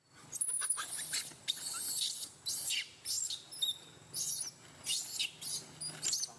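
Baby macaque crying: a quick run of about a dozen short, high-pitched squeals with brief pauses between, several falling in pitch.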